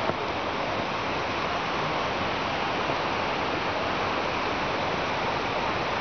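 Steady rushing of a mountain waterfall, an even hiss with no breaks.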